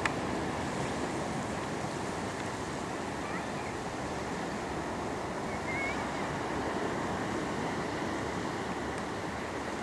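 Small waves washing on a sandy beach, blended with steady wind noise, with a faint short chirp about six seconds in.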